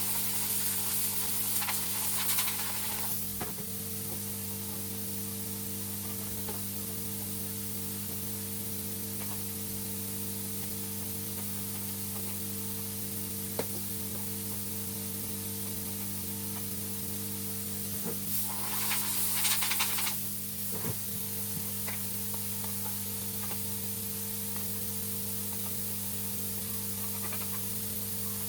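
A steady low electrical hum, with two short bouts of rustling and scraping, at the start and again about two-thirds of the way in, and a single sharp click near the middle.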